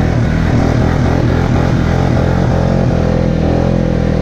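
Polaris Sportsman ATV engine held at high, steady revs as the quad strains through deep snow.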